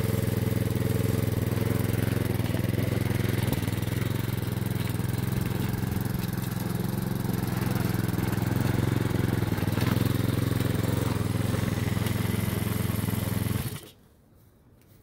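Small single-cylinder engine of a walk-behind gas lawn mower running steadily at a constant high speed; the owner thinks its carburetor is stuck on high. Near the end the engine shuts off abruptly.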